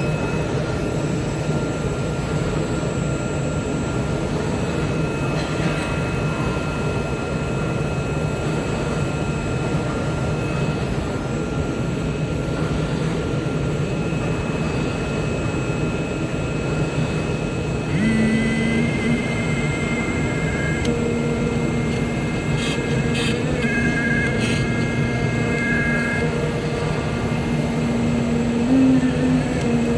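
CNC oscillating knife cutting machine running with a steady drone and thin whines. About 18 s in, a lower hum and another whine join and it gets a little louder.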